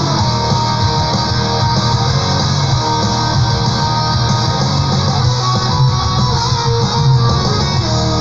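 Power progressive metal recording playing continuously, with guitars to the fore over bass.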